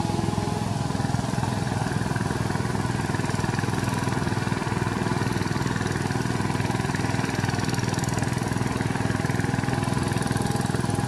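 VST Shakti 130 power tiller's single-cylinder diesel engine running steadily under load as it pulls its cage wheels through wet paddy-field mud.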